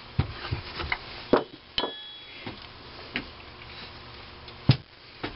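Scattered clunks and clicks of metal parts as the cast-iron crankcase side plate of an IHC Type M engine is handled and shifted on the bench. There are about five sharp knocks, and one of them, a little under two seconds in, rings briefly like struck metal.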